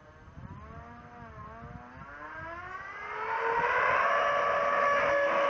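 Radio-controlled model jet's engine whine during a takeoff run: the pitch wavers at first, then climbs steadily and the whine grows much louder about three seconds in, holding high and steady near the end.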